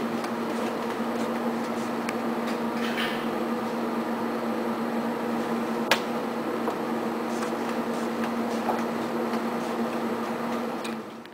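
Steady indoor building hum with a couple of fixed tones in it, with a single sharp click about six seconds in; the sound cuts off suddenly near the end.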